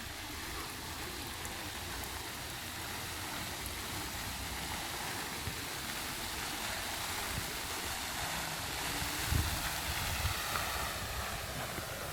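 Brine trickling and dripping down the blackthorn brushwood walls of a salt graduation tower, a steady even splashing hiss. A few short low thumps come about nine to ten seconds in.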